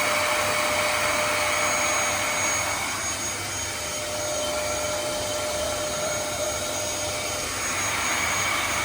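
Vacuum cleaner running steadily: an even rushing noise with a constant whine on top, dipping a little in level midway.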